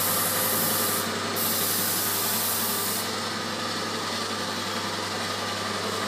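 Hose-fed paint spray gun hissing as it sprays white paint onto a wall, with a steady machine hum underneath. The hiss breaks off briefly about a second in and stops about three seconds in, leaving the hum.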